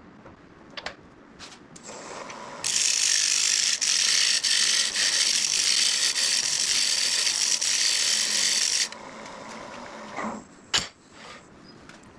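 Turning tool cutting very hard wood spinning on a wood lathe: a loud, steady hiss of the cut lasting about six seconds, starting a couple of seconds in, then a single sharp click near the end.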